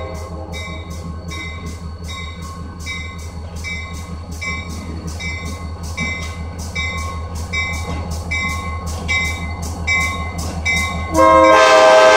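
Diesel-electric freight locomotive approaching a grade crossing: its engine rumbles steadily while its bell rings about twice a second, and about eleven seconds in the air horn sounds a loud, sustained chord.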